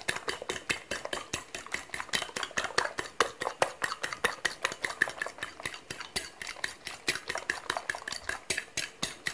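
Eggs being beaten by hand in a bowl, the utensil clicking against the bowl several times a second in a steady rhythm.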